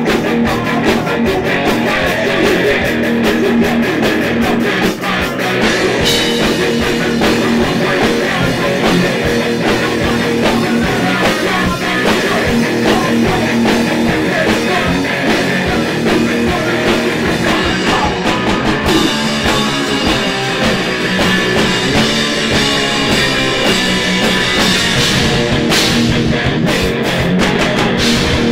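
Punk rock band playing live: distorted electric guitars over bass and drum kit, loud and continuous.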